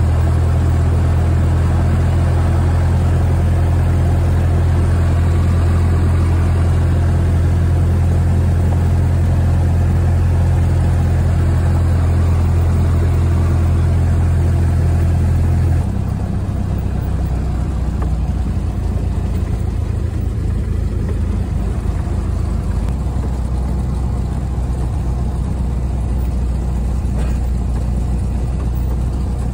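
Cessna 172's piston engine and propeller running steadily, heard from inside the cabin. About halfway through, the note drops lower and a little quieter as power comes back.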